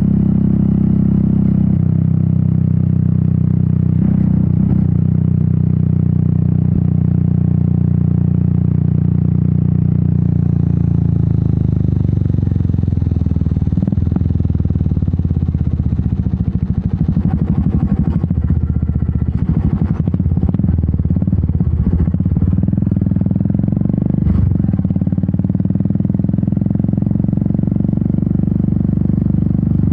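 Royal Enfield Meteor 350's single-cylinder engine and exhaust running at a steady cruise, then the engine note drops and turns uneven as the bike slows about a third of the way in. A few sharp knocks come around the middle before the engine settles back to a steady pull.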